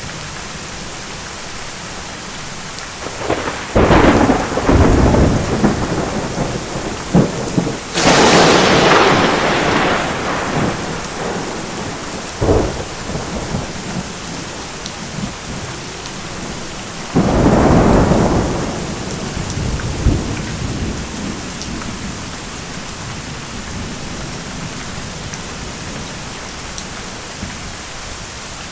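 Thunderstorm: steady heavy rain with three loud claps of thunder, about four, eight and seventeen seconds in. The clap at eight seconds is the sharpest and rolls on for a few seconds, and smaller cracks fall between the claps.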